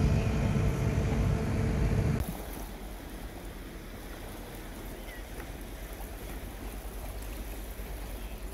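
A ship's engine rumbles low with a steady hum, cut off abruptly about two seconds in. A quieter, even hiss of wind and water follows on a boat.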